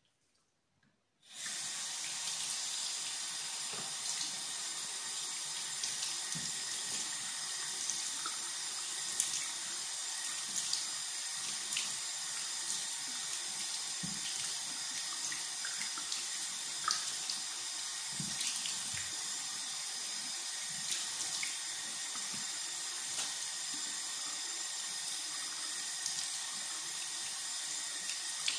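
Bathroom sink tap turned on about a second in, then water running steadily into the basin, with small irregular splashes as the face is rinsed.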